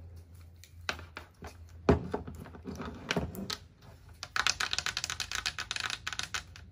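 A plastic straightener brush and its cord being handled and set down on a table, with scattered knocks and clicks, the loudest about two seconds in. Then for about two seconds, a quick run of clicky tapping from long fingernails on the brush and the tabletop.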